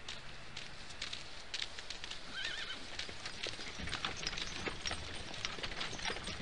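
A horse whinnies once, a short wavering call about two and a half seconds in, over irregular hoof clip-clops and clatter.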